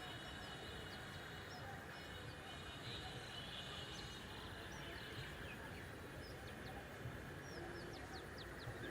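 Small birds chirping in short, quick high calls, scattered and more frequent in the second half, over a faint steady low rumble.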